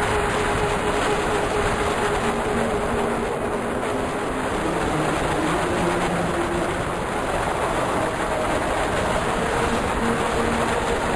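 Wind rushing and buffeting over the camera microphone during a tandem paraglider flight, a loud, steady roar.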